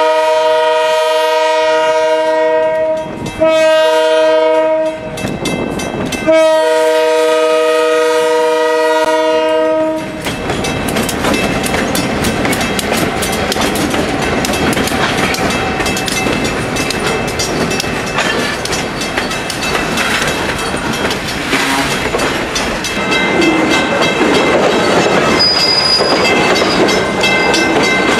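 EMD GP38-3 diesel locomotive sounding its multi-note horn for a grade crossing in blasts: a brief break, a short blast, then a long blast that ends about ten seconds in. After that, loaded wood chip gondola cars roll slowly past with a steady clickety-clack of wheels over rail joints and a brief high wheel squeal near the end.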